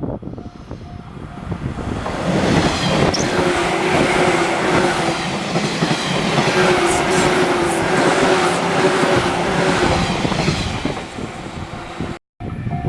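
A train passing over a level crossing: wheel-and-rail noise swells over the first two seconds and then holds steady, with a steady whine running through it. The sound cuts out suddenly for a moment near the end.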